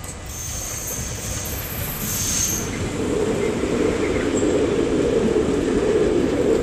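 Red Uerdingen railbus (Schienenbus) with underfloor diesel engines passing close by, its engine and running noise growing louder as the cars go past. A thin high wheel squeal sounds in the first couple of seconds.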